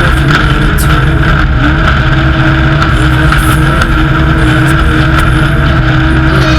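Off-road race vehicle's engine running hard at a steady speed, with a constant rush of road and wind noise.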